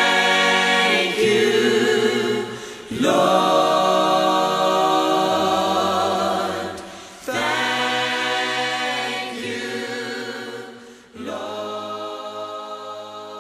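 Choir singing a slow worship song in long held chords. A new phrase swells in about every four seconds and dies away, and the singing fades out toward the end.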